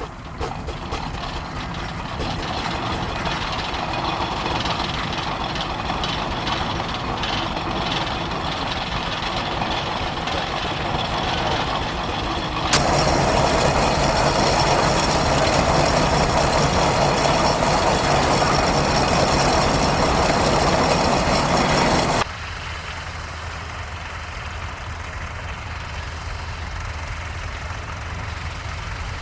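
Howard steam ploughing engine running steadily. A louder, noisier stretch begins suddenly about 13 s in and cuts off about 22 s in.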